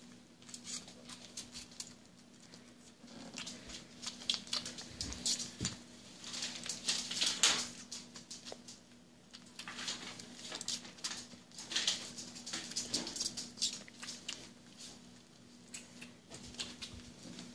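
Baby squirrel, about six to seven weeks old, suckling from a feeding syringe: quick wet sucking and smacking clicks that come in clusters, over a faint steady hum.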